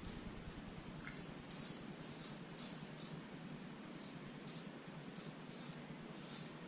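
Wet shaving brush working up lather, a series of short, hissy swishes of the bristles about twice a second.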